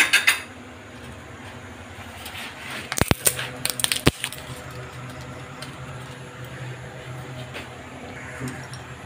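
A few sharp clicks and clinks from kitchenware being handled as bay leaves are added to a pot of heating milk, a cluster of them about three to four seconds in, over a steady low hum.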